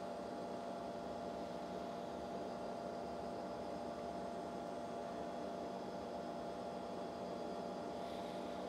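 Steady hum with several fixed tones over a faint hiss, unchanging throughout.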